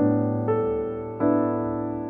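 Slow, soft piano music: sustained notes or chords struck about every half second to second, each fading before the next.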